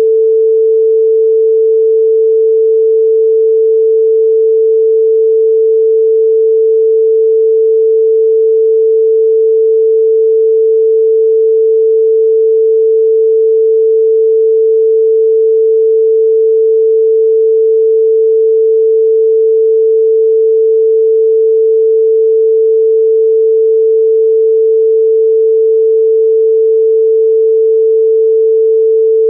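A single pure electronic sine tone held at one steady pitch, unchanged throughout: a Rife frequency-therapy tone.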